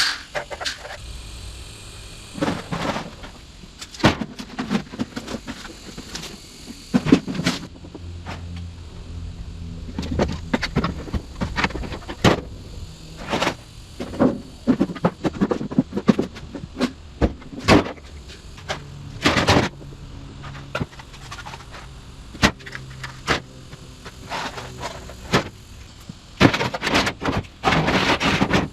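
Sheet aluminum siding and metal scrap being handled and tossed into a truck bed: repeated irregular clanks and rattles of thin metal, some ringing briefly.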